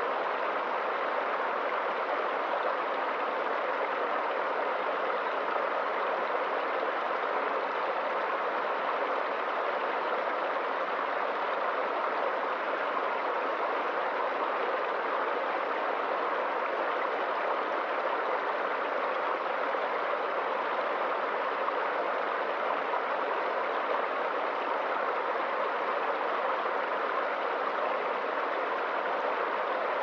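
Small rocky stream running over a low cascade into a pool: a steady, even splashing of water.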